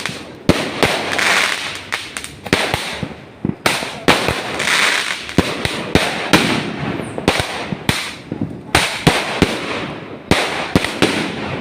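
Fireworks going off: many sharp bangs at irregular spacing, several a second, over a hissing crackle.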